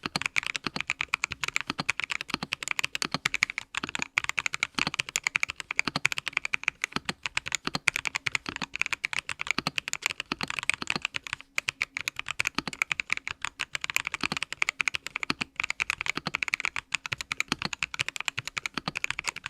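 Continuous fast typing on a Vortex GT-6 mechanical keyboard with lubed and filmed Boba U4T tactile switches: a dense stream of key clacks with occasional deeper, heavier strokes.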